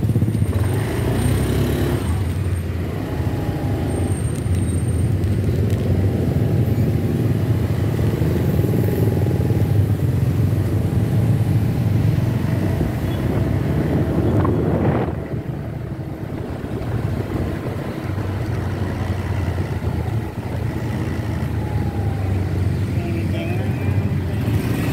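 Motorcycle engine running as it rides slowly, with a steady low rumble that eases for a few seconds past the middle.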